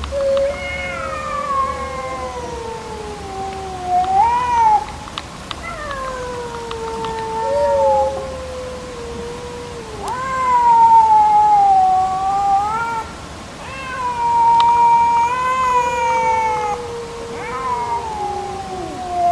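Cats yowling at each other in a face-off: long, wavering wails that rise and fall in pitch, one after another with hardly a break. These are threat yowls of a standoff before a fight.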